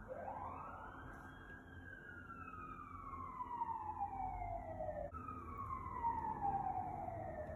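Emergency vehicle siren wailing. Its pitch sweeps quickly up, slides slowly down over about four seconds, then jumps back up about five seconds in and slides down again.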